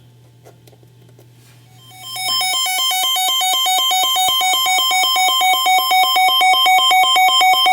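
A faint low hum for about two seconds, then a rapid, repeating run of bright electronic tones, like a ringtone, starts and keeps going.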